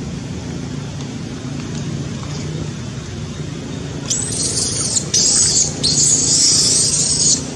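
Newborn macaque screaming in distress: three shrill, very high screams starting about four seconds in, the last one the longest, over a steady low background rumble.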